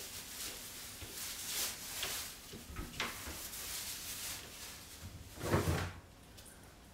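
Tall kitchen pantry cupboard door being opened, with a few light clicks and knocks, then a louder dull thump with rustling about five and a half seconds in as something is set down inside.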